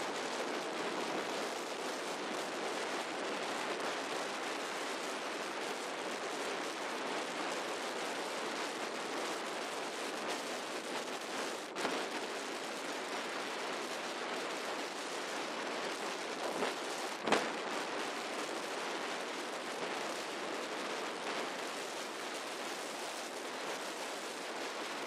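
Steady rushing wind and road noise from a quad bike riding along an asphalt road, with no distinct engine note. Two brief knocks, about halfway through and again about two-thirds through, the second the louder.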